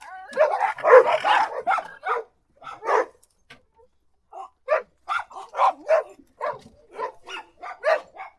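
Several dogs barking: a dense, overlapping flurry of barks for about two seconds, then after a short pause a string of separate barks, roughly two a second.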